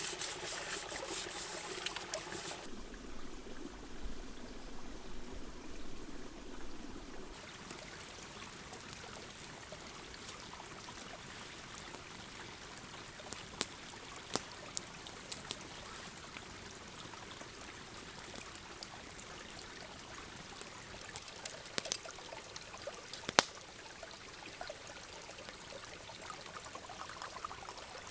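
Pot being scrubbed with sand and moss for the first couple of seconds, then a river running steadily, with a few sharp clicks here and there.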